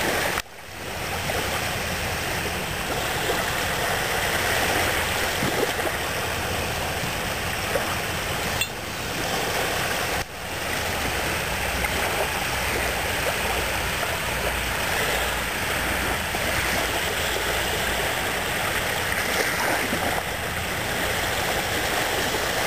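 Steady rushing noise of wind and surf at the shoreline, cutting out briefly a few times in the first half.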